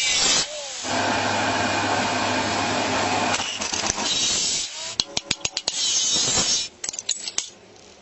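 Metal fabrication sounds. An angle grinder cuts rusty sheet steel for about the first half second, then arc welding gives a steady crackling hiss over a low electrical hum. Runs of sharp metallic clicks come in twice, around five seconds in and again near seven seconds, and everything stops shortly before the end.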